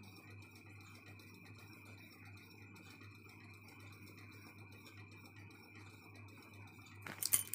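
Quiet room tone with a steady low hum and a thin, steady high whine. About seven seconds in comes a brief, louder burst of rustling noise.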